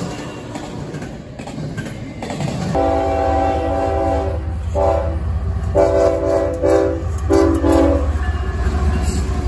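A freight train rolling past with wheels clattering over the rails, then from about three seconds in a CSX diesel locomotive sounds its air horn, several notes at once, in four blasts, long ones with one short, over the steady low rumble of the train.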